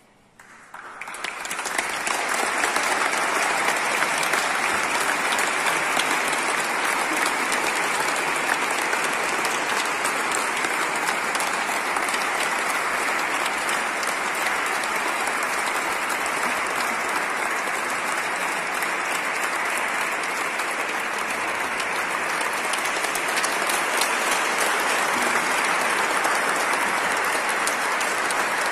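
Congregation applauding steadily, the applause swelling up over the first couple of seconds and then holding without a break.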